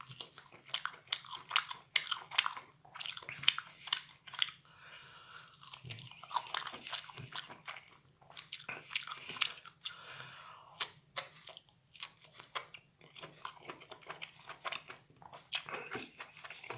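A person chewing and biting into soft, watery microwaved meadow mushrooms close to the microphone, a steady run of irregular short mouth clicks.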